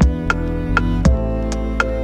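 Background music: sustained synthesizer chords over a soft electronic beat, with a low kick about once a second and lighter ticks in between.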